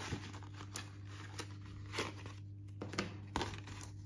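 Paper instruction sheets and thin plastic sticker films rustling and crinkling as they are handled in a cardboard box, with scattered soft clicks, over a steady low hum.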